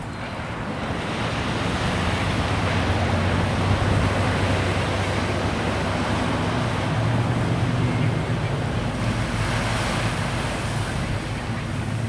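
Ocean surf and wind on the microphone: a steady rushing noise that swells about a second in, with a low steady hum underneath.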